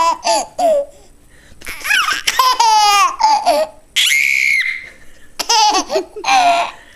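A baby of almost 8 months laughing hard in repeated bursts, set off by an adult's spitting noises. A short hissing spit sound comes about four seconds in, and he laughs again right after it.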